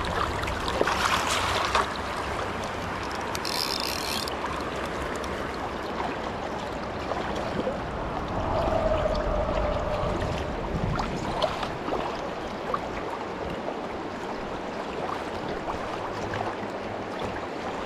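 Shallow river running over stones close to the microphone: a steady rush and babble of water. A short rasping buzz comes in about three and a half seconds in.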